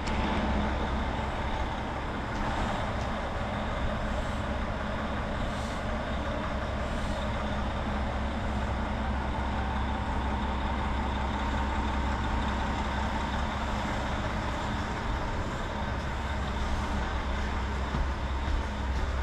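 Steady low rumble of a running vehicle, with a constant low engine hum and no sudden changes.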